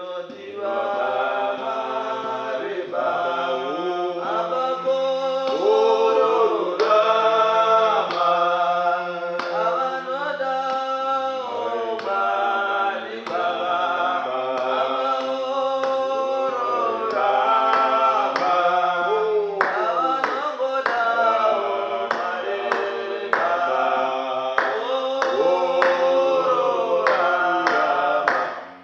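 Shona gospel song sung by a group of voices in harmony, with sharp hand claps joining in from about two-thirds of the way through.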